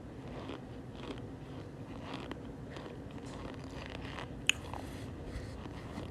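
Cornstarch being crunched: soft, squeaky crunches about twice a second, with one sharper click about four and a half seconds in.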